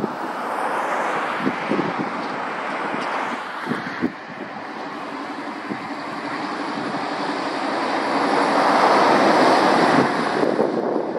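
Road traffic passing at speed: tyre and engine noise swelling to a peak about nine seconds in, then easing near the end. Wind buffets the microphone, with a few short knocks in the first few seconds.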